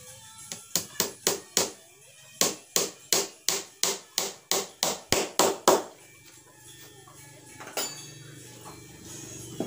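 A hammer driving nails into a 12 mm plywood speaker box: a quick run of about sixteen blows, roughly three a second with a short pause after the first few, stopping about six seconds in, then one more single knock later.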